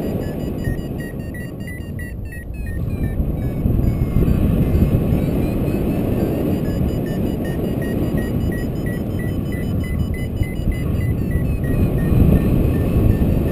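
Strong wind rushing over the microphone in paraglider flight, with a variometer beeping in short repeated tones whose pitch steps up and down. This is the climb tone that signals rising air.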